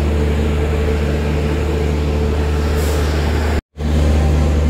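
Steady low droning hum from a train standing at the station platform, its locomotive or power car running. It cuts out for a split second about three and a half seconds in, then carries on unchanged.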